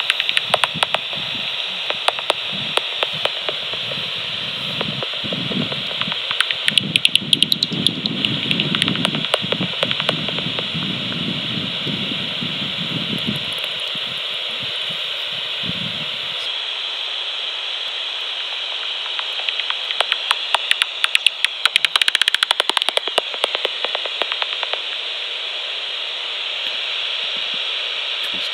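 Magenta Bat5 heterodyne bat detector output: a steady hiss with rapid trains of dry clicks from bats' echolocation calls. The clicks come in several bursts, the densest a few seconds in and again past the middle. A low rumble runs under the first half and stops about two-thirds of the way through.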